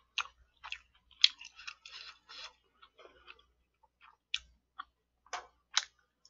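Close-miked eating sounds: chopsticks clicking against plastic takeout containers and chewing, as a run of short, sharp clicks and crackles at uneven intervals, the loudest a little over a second in.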